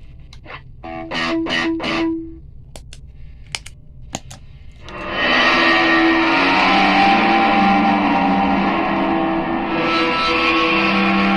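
Electric guitar through distortion, reverbs and delay on homemade pedals: a few short picked notes about a second in and a few sharp clicks, then from about five seconds in a loud, sustained ambient wash of distorted chords that swells in and holds, with notes shifting slowly.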